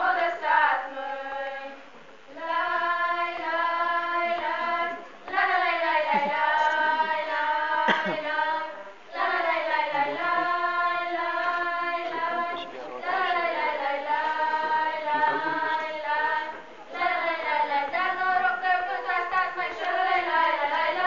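A small group of girls' and women's voices singing a folk song together, unaccompanied, in phrases of three to four seconds with short breaths between them.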